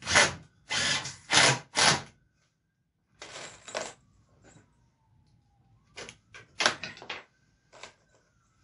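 Cordless drill driving screws into wooden boards in short trigger pulls. There are four quick bursts in the first two seconds, a longer one about three seconds in, several short pulls around six to seven seconds, and one brief pull near the end.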